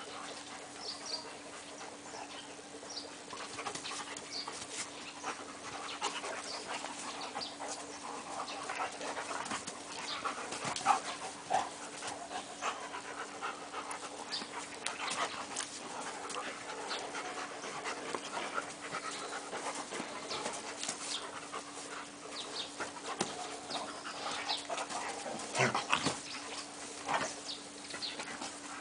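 A German shepherd and a Doberman play-fighting: heavy panting and scuffling, with many irregular short sharp sounds, the sharpest about eleven seconds in.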